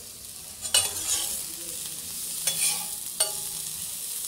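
Sliced onions, tomatoes and green chillies sizzling as they are sautéed in a flat pan, with a steady high hiss. Three stirring strokes scrape across the pan, the first just under a second in and the last about three seconds in.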